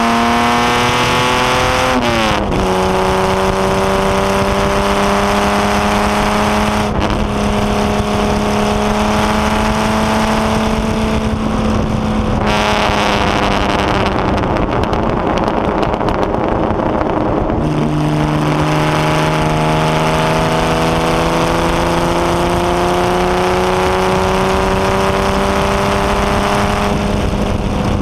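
Onboard sound of the HW Alta-Jaguar's Jaguar straight-six racing engine under hard acceleration, heard over wind rush. Its pitch climbs steadily and drops sharply at a gear change about two seconds in. It breaks again near seven and twelve seconds, falls lower around seventeen seconds, then climbs through the revs once more.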